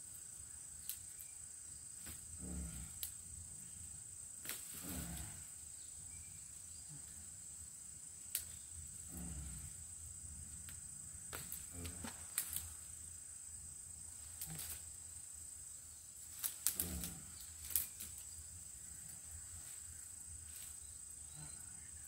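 Insects keep up a steady high-pitched drone. Brush rustles and debris is shifted around, with scattered sharp clicks and knocks, a cluster of them a little after the middle.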